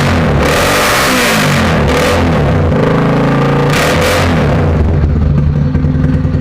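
Motorcycle with a Roncar Boca 8 aluminium racing exhaust, revved hard several times in quick succession, then settling back to a steady idle about five seconds in.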